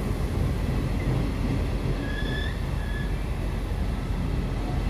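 Regional train coaches rolling along the platform: a steady low rumble of wheels on rail, with two short, faint high squeals about two and three seconds in.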